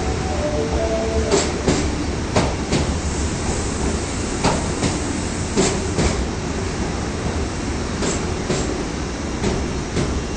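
Osaka subway Tanimachi Line train 22962F moving through the station, its wheels clacking in pairs over rail joints against a steady low rumble. A few tones of its distinctive, odd-sounding horn end about a second and a half in.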